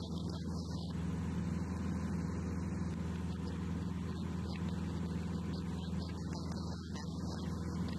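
Light aircraft's piston engine and propeller at a steady cruise, an even low drone with hiss above it and no change in power.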